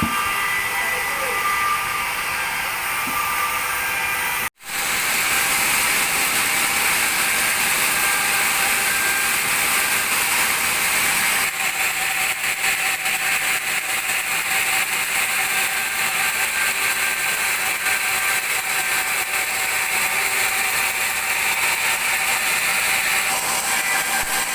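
Large band saw cutting a teak log: a steady, high-pitched hissing whir of the blade in the wood. Just over four seconds in, a sudden gap of a fraction of a second, then the sawing carries on.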